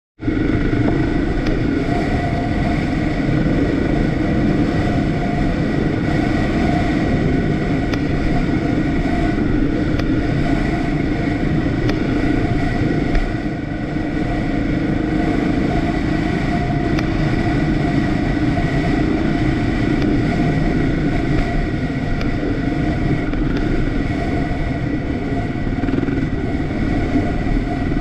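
The engine of a small off-road vehicle running at a fairly steady speed while being ridden, with a dense low rumble underneath. The level dips briefly about halfway through.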